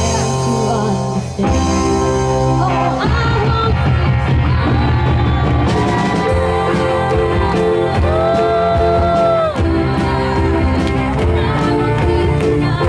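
Live rock band playing, with singing over electric guitar and drums; a steady high ticking beat of cymbals comes in about six seconds in.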